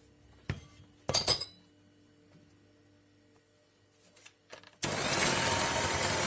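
A few short knocks and clicks of handling, then about five seconds in an electric hand mixer switches on and runs steadily, beating eggs and sugar.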